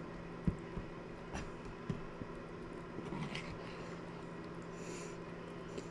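A few faint clicks and scrapes of a spoon stirring through a bowl of grits, over a steady low room hum.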